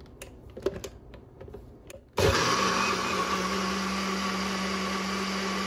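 A few light clicks, then about two seconds in a personal bullet-style blender switches on and runs steadily, puréeing cilantro leaves and water into a smooth green liquid.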